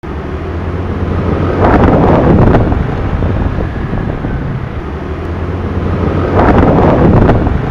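Wind rushing over the microphone of a moving dashcam, over a steady low rumble of engine and road noise, swelling louder twice.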